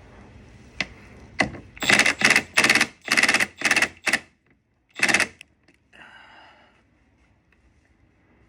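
Right-angle impact wrench fired in short pulses, about eight in all, driving a long M6 bolt to crush and set an extended rivnut in the body panel; the rivnut is flaring out on the back side.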